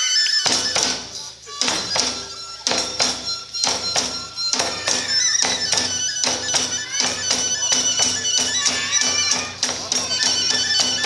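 Iwami kagura accompaniment: drums and small hand cymbals strike a steady beat under a high, held flute line. The strikes come faster about halfway through.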